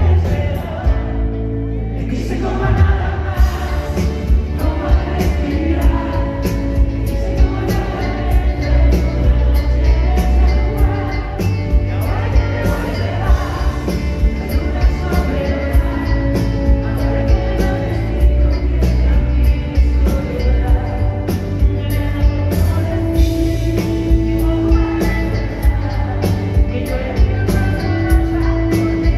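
Live pop-rock band heard from the audience: a woman sings lead over keyboards, electric bass and drums, with the full band coming in about three seconds in.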